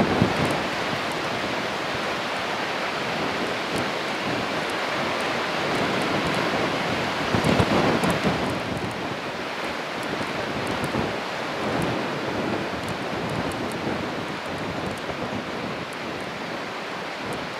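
Strong, constant wind buffeting the microphone, with louder gusts at the start and again about halfway through.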